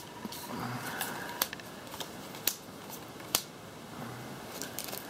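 Trading cards being set down one at a time on a tabletop: four sharp taps about a second apart, over faint room noise.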